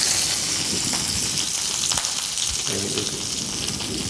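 Lemon butter sauce sizzling in a frying pan under a halibut fillet, a steady hiss that slowly fades, with a few light knocks.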